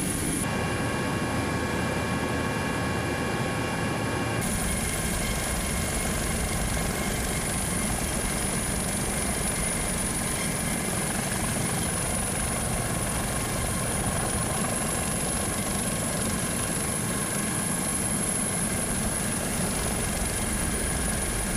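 Steady drone of helicopter engine and rotor noise with a faint high whine, unchanging in level throughout.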